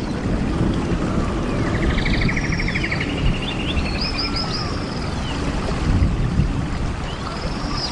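Birds calling over a steady low rumble. A rapid buzzy trill comes about two seconds in, and runs of short, high, down-slurred notes repeat several times.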